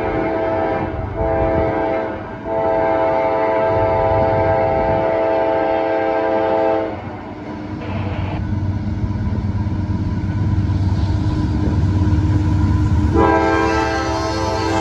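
Freight locomotive's five-chime Nathan K5LA air horn sounding a chord in long blasts, with two short breaks in the first seconds. It stops about seven seconds in and comes back near the end. Between blasts the low rumble of the approaching GE AC4400CW diesel locomotives grows louder.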